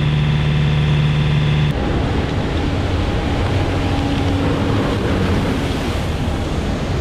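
A boat engine runs steadily with an even hum until it cuts off abruptly about two seconds in. Then comes a steady rush of water and wind noise with a faint engine drone, from a high-speed catamaran ferry crossing open water.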